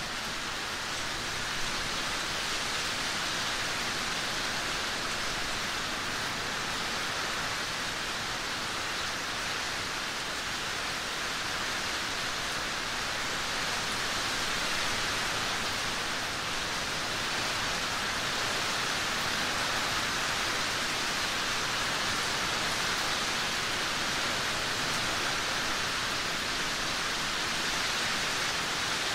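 Steady rain, a continuous even hiss.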